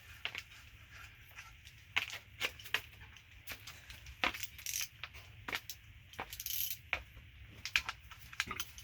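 Scattered light metallic clicks and clinks, with a few brief scrapes, as a new timing chain guide and its bolts are handled and fitted on the engine.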